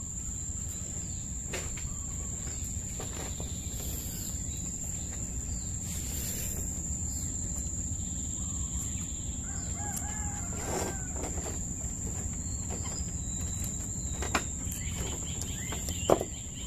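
Outdoor ambience with a steady high-pitched insect drone, such as crickets, over a low rumble, with a brief bird call about ten seconds in and a few faint clicks, the sharpest near the end.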